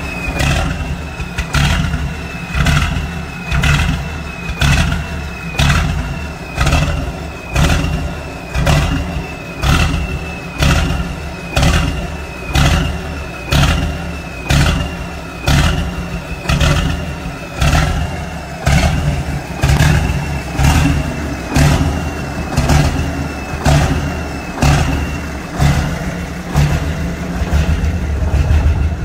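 Detroit Diesel 8V92 two-stroke V8 diesel engine being revved about once a second, over and over. Each rev swells and dies back, with a high whine that falls after it.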